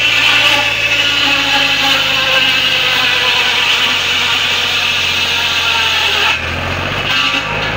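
Tractor-driven circular saw ripping a long wooden plank: a loud, steady high whine of the blade cutting through the timber. It stops about six seconds in, a brief second burst of cutting follows, and the tractor engine's steady low hum comes back near the end.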